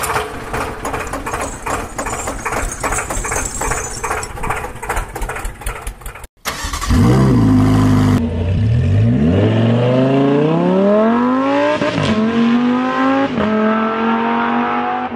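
Tractor engine sound effect chugging with an even beat. After a short break, a sports-car engine sound effect revs up, rising in pitch over several seconds, then holds steady with two quick blips near the end.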